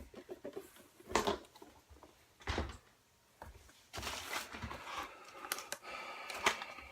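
Items being handled and moved around in a cardboard box: a few short knocks, then a stretch of rustling and clattering.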